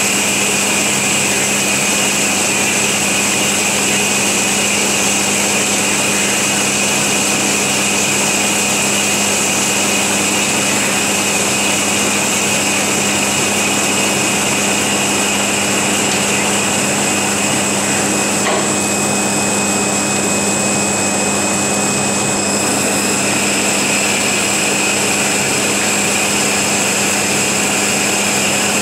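FMB Omega hydraulic semi-automatic band saw running steadily, its blade cutting through solid metal bar, with a constant hum and high whine. A faint click about 18 seconds in, after which the high whine shifts slightly for a few seconds.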